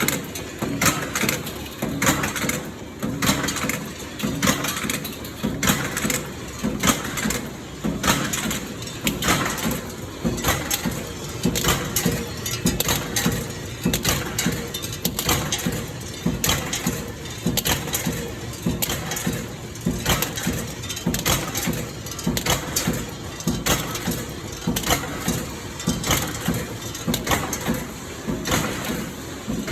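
Rivet-making machine running, with regular knocks about once a second over a steady mechanical noise.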